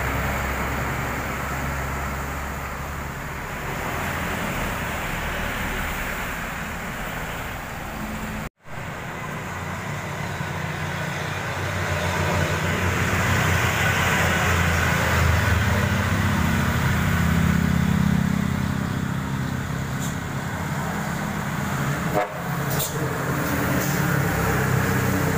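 Heavy trucks and other traffic passing on a wet road: diesel engines droning under a steady hiss of tyres on the wet asphalt. The drone swells loudest midway as a big truck goes by close, and the sound cuts out briefly twice.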